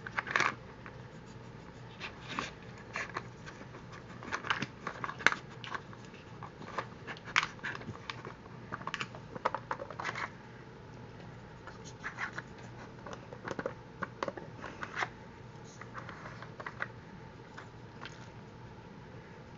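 Dog's nose working the plastic lids of a treat-puzzle toy, giving irregular clicks, knocks and scrapes of hard plastic that thin out near the end.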